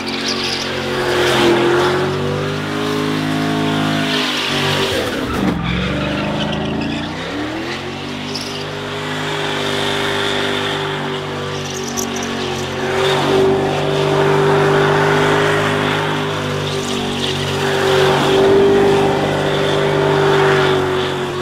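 Car engine held at high revs in a burnout, rear tyres spinning and squealing. The revs drop sharply about six seconds in, climb back within a couple of seconds, then hold steady.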